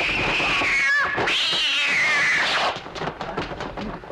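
Two long, wavering cat yowls one right after the other, each sliding down in pitch at its end, dubbed in as a fight sound effect; then it drops to a quieter stretch with a few faint clicks.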